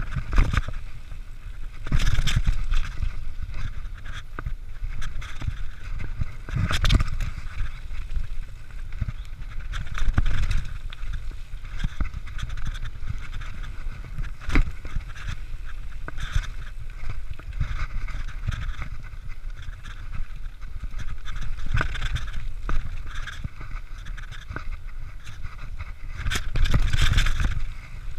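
Mountain bike riding fast down a dirt and gravel trail: a steady rush of tyre noise and wind rumble on the microphone, with frequent rattles and knocks from the bike over bumps, swelling louder every few seconds.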